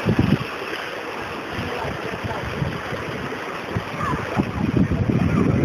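Sea waves washing on the shore with wind buffeting the microphone; faint voices come in near the end.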